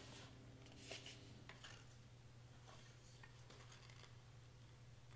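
Near silence: faint rustling of cardstock as it is folded and pressed into place by hand, with a couple of soft crinkles in the first second and a half, over a low steady hum.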